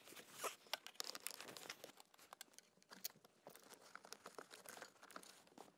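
Faint, irregular rustling and small clicks of hands working in a car's footwell under the dashboard, handling the throttle pedal's wiring and plastic trim.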